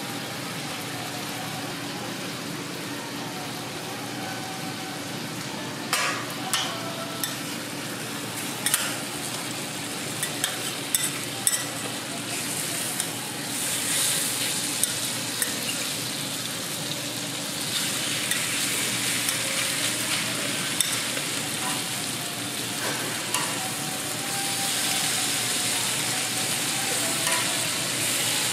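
Food frying on a flat-top griddle: burger buns toasting, then bacon strips and a sheet of egg sizzling, with the sizzle getting louder in the second half. A metal spatula and tongs click and scrape against the griddle plate from about six seconds in.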